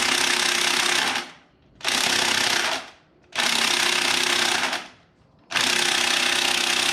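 Impact wrench hammering in four bursts of about a second each with short pauses between, without breaking the stuck nut loose.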